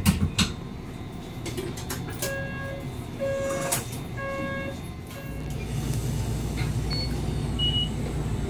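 A sharp clatter at the start, then a tram door-warning chime of short electronic beeps on a few steady pitches, repeated three or four times. About five seconds in, the Randen tram starts to pull away, its motors and wheels making a low rumble that slowly grows.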